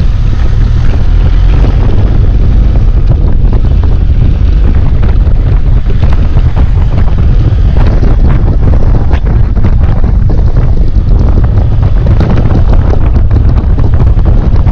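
Heavy wind buffeting on the microphone of a motorcycle at road speed, with the bike's engine and tyre noise underneath.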